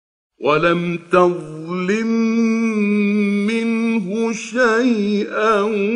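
A male reciter chanting the Quran in a slow, ornamented melodic style, holding long notes with wavering turns. The voice comes in about half a second in, after a brief silence.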